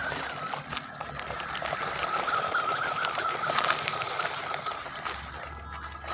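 Small electric motor and gears of a 1/18 PXtoys 9303 4x4 RC truck whining as it drives, the pitch wavering up and down with the throttle, over the crunch and clatter of the tyres on loose gravel.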